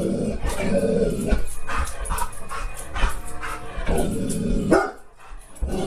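Dog barking repeatedly, about one or two barks a second, mixed with higher yips and whines.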